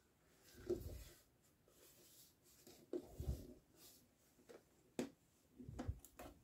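Handling of a hard plastic toy piggy bank: soft bumps and several sharp, faint plastic clicks as it is turned and its hinged top flap is lifted.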